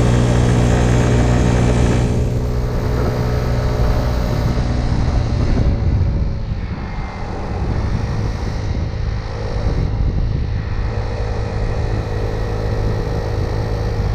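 Small gasoline scooter engine running steadily under way, with wind and road noise over it. The engine note softens briefly about seven seconds in, then picks up again.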